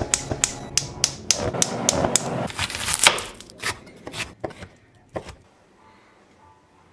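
Kitchen knife chopping a bell pepper on a bamboo cutting board: a run of sharp, uneven knocks, several a second, that stops about five seconds in.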